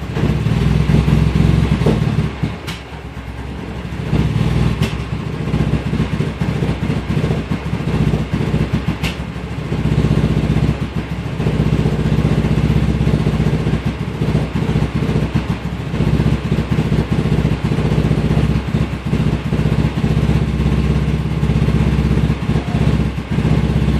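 Vehicle engine idling roughly: a steady low running sound whose level sags twice in the first ten seconds.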